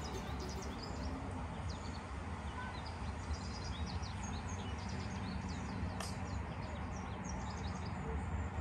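Songbirds chirping with many short, high calls over a steady low rumble. One sharp click about six seconds in.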